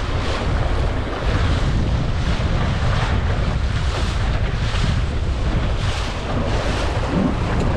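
Strong wind buffeting a head-mounted GoPro's microphone in a heavy low rumble, with waves and water splashing around a small sailing dinghy in rough water. Surges of hiss come every half second to a second over the rumble.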